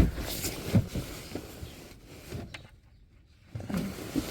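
A sharp knock, then rustling and small knocks as gear is shifted about while someone rummages in the back of a cluttered van; it goes quiet for a moment before more handling near the end.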